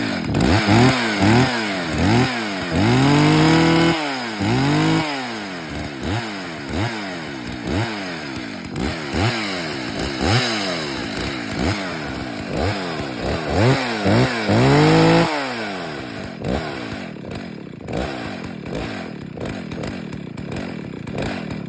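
Husqvarna 61 Rancher two-stroke chainsaw running and being revved again and again in quick throttle blips, with two longer held revs. It then settles to a lower, steadier running speed near the end.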